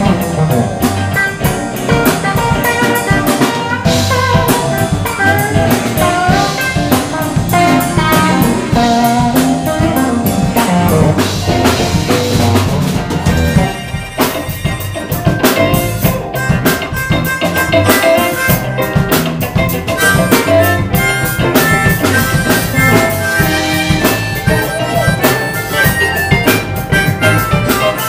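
Live electric blues band playing: electric guitars over a drum kit, with a harmonica played into the vocal mic taking the lead in the second half.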